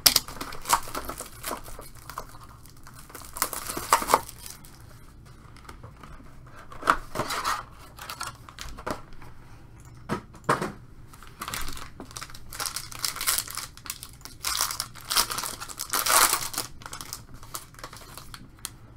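Plastic shrink-wrap and a foil trading-card pack crinkling and tearing as a sealed box of Inception baseball cards and one of its packs are opened by hand, in irregular bursts of rustling.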